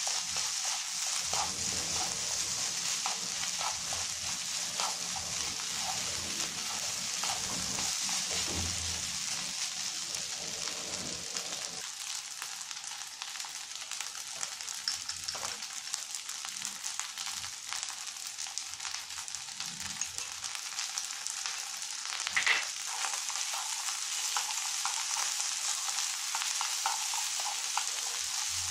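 Rice sizzling steadily in a frying pan while it is stirred and tossed with chopsticks, with small scrapes and taps of the chopsticks against the pan. One sharp clack stands out late on.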